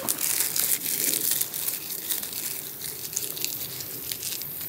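Close rustling and crinkling of a leafy camouflage jacket and handled gear as the hunter moves. It comes as a quick string of small scrapes and clicks, busiest in the first second and a half.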